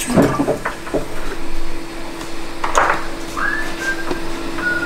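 Car ramp being lowered: a steady hum from its motor, with a few clanks at the start and a brief higher whine in the second half.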